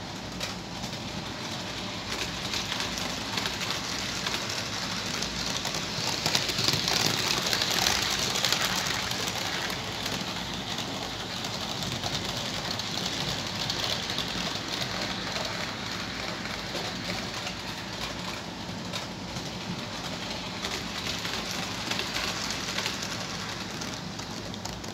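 Roco H0-scale model trains running on the layout's track: a steady rolling clatter with many small clicks, louder for a few seconds about six seconds in.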